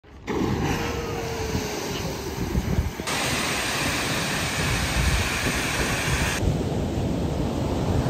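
Three cut-together outdoor nature clips. First wind and rushing outdoor noise at a geyser pool. About three seconds in it cuts to the steady rush of a waterfall, loud and hissing. About six seconds in it cuts to duller wind and surf on a beach.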